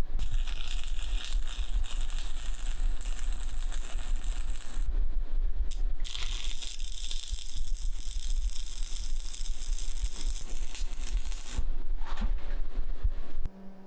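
Arc welding on the steel fire pot: two long beads of steady frying crackle, the first stopping about five seconds in and the second starting a second later and running to about eleven and a half seconds. A steady low hum underneath cuts off near the end.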